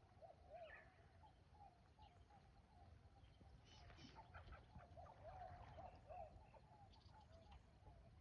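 Faint animal calls: a steady run of short, repeated chirping notes, joined by a few higher calls about halfway through and again near the end, over a low rumble.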